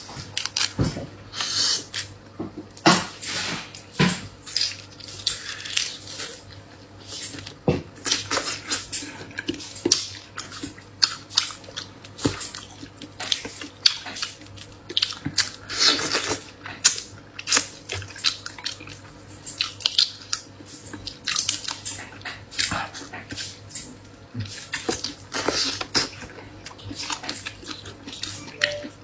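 Close-miked eating sounds: irregular wet chewing, smacking and slurping with short clicks, some of them louder.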